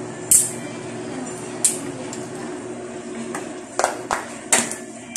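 Metal utensils clinking against cookware, five sharp clinks: one just after the start, another a little over a second later, then three in quick succession near the end, over a steady low hum.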